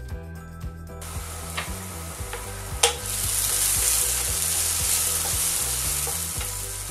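Chopped shallots frying and sizzling in a pan while a wooden spatula stirs them. The sizzle grows louder about three seconds in, just after a single sharp tap.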